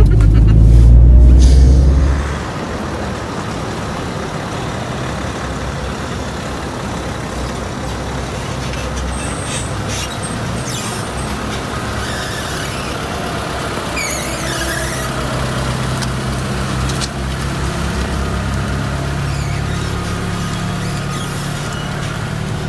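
Honda Prelude driven on the move. For the first two seconds a loud, deep engine and road rumble is heard inside the cabin. After that its engine runs at a lower level, with a few short squeals, most around the middle.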